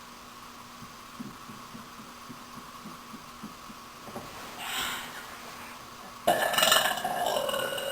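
A woman's long, loud belch that starts suddenly about six seconds in and lasts about two seconds, its pitch sagging as it goes.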